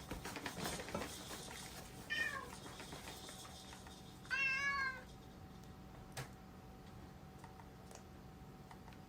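A cat meowing twice: a short falling meow about two seconds in, then a longer meow about half a second long a little after four seconds, with some rustling near the start and a single click later.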